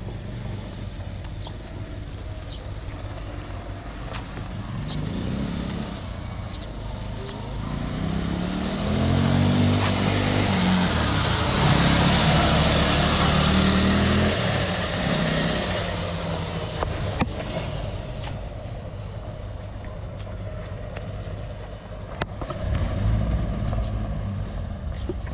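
Engine of a homemade three-wheeled all-terrain motorcycle approaching, passing close by and fading away. The engine note rises and falls as it goes by, loudest about halfway through.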